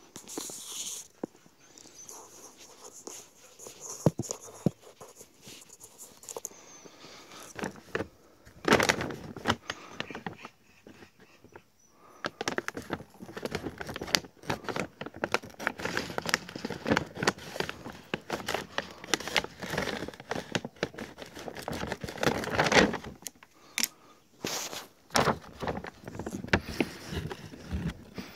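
Scissors cutting open the top of a large bag of dry cat food, the bag's thick wrapping crinkling and crackling with many sharp snips and rustles, busiest in the middle.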